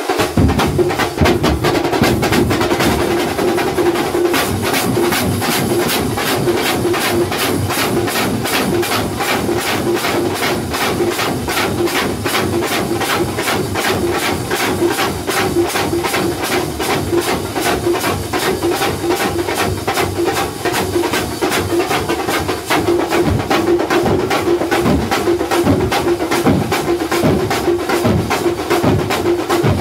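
A thambolam percussion ensemble playing: many large frame drums beaten with sticks, side drums and clashing hand cymbals in a loud, fast, unbroken rhythm.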